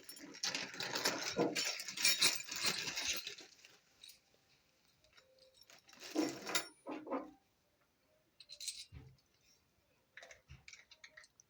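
Handling noise from unboxing a cordless tool kit: a dense stretch of rustling and clattering for the first three seconds or so, then a few separate knocks and clicks as items are set down.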